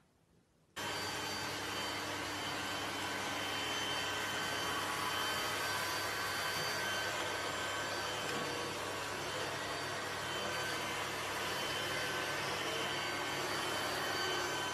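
Robot vacuum cleaner running, a steady whirring noise with a faint hum in it, cutting in suddenly about a second in.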